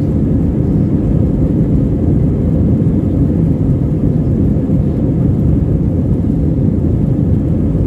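Jet airliner heard from inside the cabin during its takeoff roll: engines and runway noise make a loud, steady low rumble.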